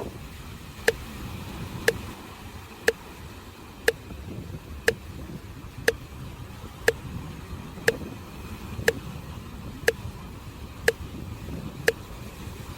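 A sharp tick exactly once a second, like a metronome keeping the breathing pace, over a steady low wash of surf from waves on the beach.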